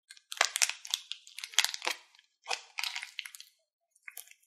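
Plastic piping bag crinkling and tearing as it is peeled off crunchy slime full of foam beads: dense crackling in two long spells, then a short one near the end.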